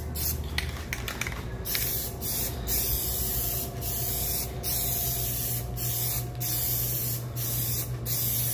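Aerosol can of Plasti Dip spraying in a run of hissing passes, each broken by a brief pause, as a coat of rubber coating goes onto a car's rear wing. A steady low hum sits underneath.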